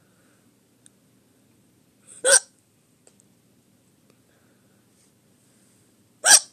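A person hiccupping twice, about four seconds apart. Each is a single short, sharp hic; the second comes near the end.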